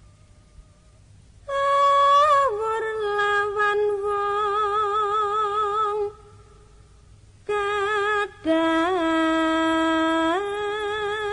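A solo voice singing slow, drawn-out Javanese tembang-style phrases, holding long notes with a wavering vibrato and stepping between pitches. One phrase starts about a second and a half in and stops around six seconds; after a short pause a second phrase starts near seven and a half seconds and carries on past the end.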